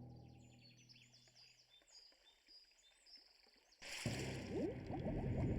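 Cartoon soundtrack: a low music cue dies away, faint high chirps follow, then about four seconds in a loud rushing, rumbling sound effect starts abruptly.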